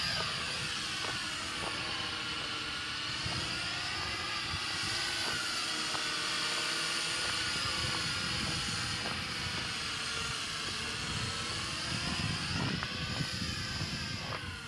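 Small remote-controlled aircraft flying, its electric motor and propeller giving a high whine. The pitch sags and rises slowly as it flies.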